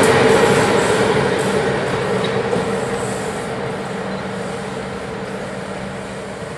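Electric locomotive passing close by and then moving away, its rumble on the rails fading steadily, with a steady low hum beneath it.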